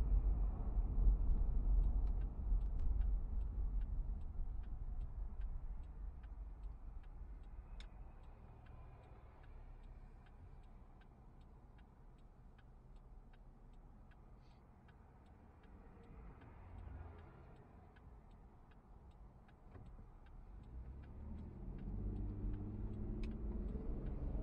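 A car's turn-signal indicator ticking at a steady even pace inside the cabin, over low engine and road rumble. The rumble sinks to a quiet idle in the middle and builds again near the end.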